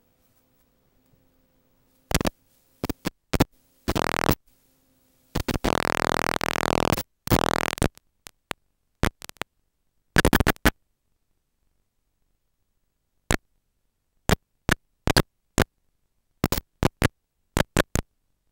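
Harsh bursts of static and buzz from a 5.8 GHz video receiver's audio, cutting in and out irregularly with dead silence between: the radio link is breaking up. The longest burst, a buzz lasting over a second, comes about a third of the way in.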